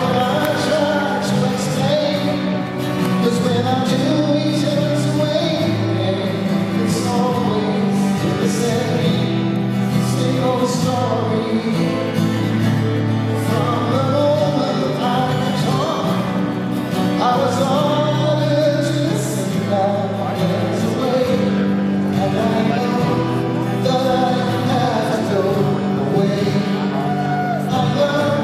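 Live music: a man singing into a microphone, with band accompaniment.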